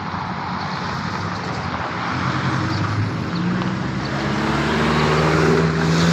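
Diesel engine of a short local passenger train pulling away from a station, a steady low engine note over general rumble that grows louder over the last few seconds as the train draws nearer.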